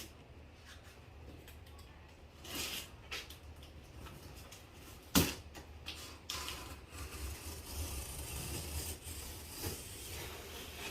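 Cardboard shipping box being cut open with a knife and handled: scattered scraping, slicing and rustling of cardboard, with a sharp knock about five seconds in.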